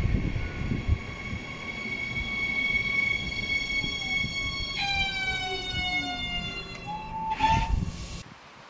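Siemens regional electric train passing, its high electric whine over a rumble of wheels on the rails. About halfway through, the whine drops suddenly in pitch and then slides slowly lower. The sound cuts off shortly before the end.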